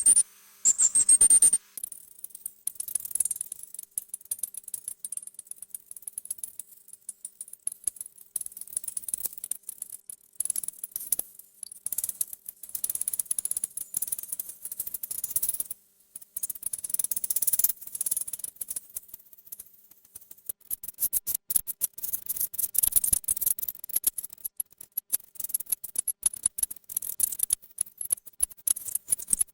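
Bats chirping and squeaking: a fast, irregular stream of very high-pitched clicks and chirps, busier about halfway through and again in the last third.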